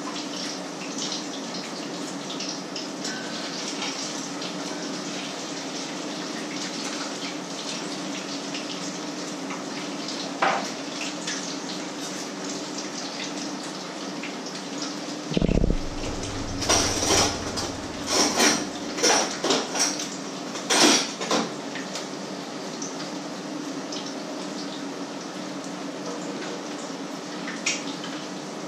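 Meat frying in a pan with a steady sizzle over a low hum. About halfway there is a dull thump, then several seconds of metal clatter of pans and cutlery.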